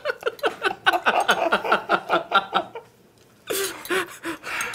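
Young men laughing hard in rapid pulses of "ha" for about three seconds, breaking off briefly, then a breathy, gasping laugh near the end.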